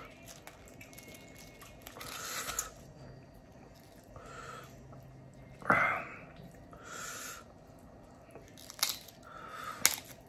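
Close-miked eating sounds: chewing, and soft handling of food being pulled apart by hand. A few soft breathy sounds come a couple of seconds apart, with a louder sharp sound about six seconds in.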